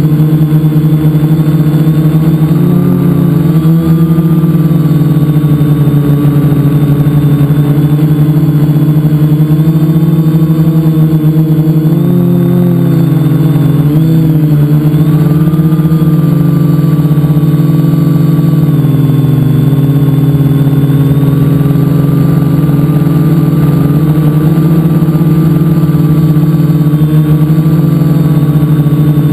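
Multicopter's electric motors and propellers buzzing loudly at close range, a steady pitched hum that wavers slightly in pitch as the throttle changes.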